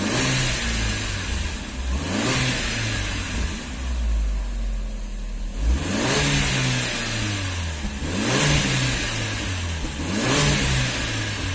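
Chevrolet Astra engine revved in about five short throttle blips, its pitch rising and falling roughly every two seconds. This follows oil starvation: the engine is running up oil pressure while the hydraulic lifters, which had been knocking, fill with oil and quieten.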